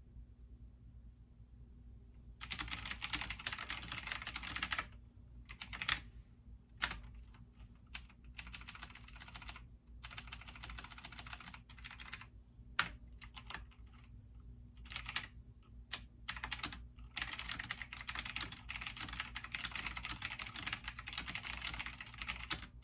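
Computer keyboard typing in fast spurts of rapid key clicks, broken by short pauses, over a steady low hum.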